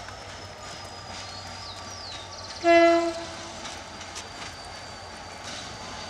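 Air horn of an EMD GT22CW-2 diesel locomotive giving one short single-note blast of about half a second, nearly three seconds in.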